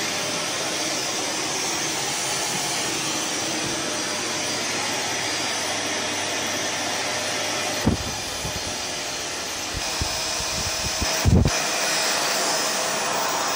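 Canister vacuum cleaner running steadily with its floor nozzle working a carpet. Two low knocks come about 8 and 11 seconds in, the second the louder.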